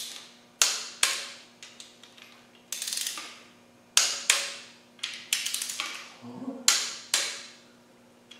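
Torque wrench tightening front cover bolts to 25 Nm: a series of sharp metallic clicks, with short bursts of rapid ratchet clicking as the handle is swung back between pulls.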